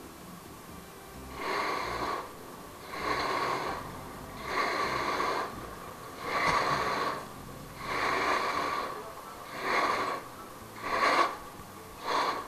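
Rhythmic breathing close to the microphone, about one breath every second and a half, starting about a second and a half in.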